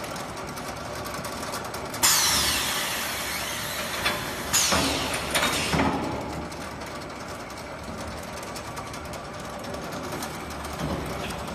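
Automatic glass film-bagging line running, with the steady hum of the conveyor and wrapping machine. A sharp hiss about two seconds in, the loudest sound, and several more around five to six seconds in, each dying away within a second, typical of pneumatic actuators releasing air.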